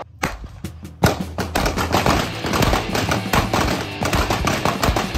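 A few sharp gunshots in quick succession, then background music with a fast, busy beat comes in about a second in.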